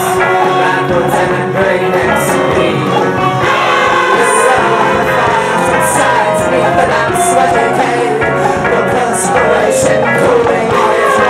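Live band music: several women singing together in harmony over electric guitar and drums, with cymbal or tambourine strokes keeping time.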